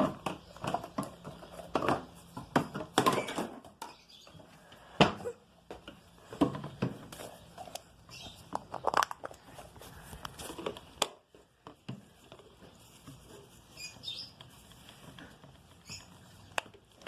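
A series of irregular knocks and clicks, thickest and loudest in the first half and sparser later on.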